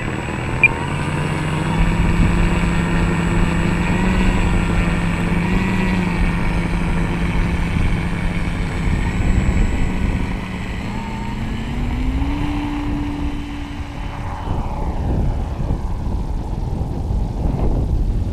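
Electric RC model T-28 Trojan's motor and propeller running at a steady pitch on the ground. About eleven seconds in it throttles up with a rising pitch for the take-off run, then gives way to a rushing noise with a falling pitch as the plane flies off.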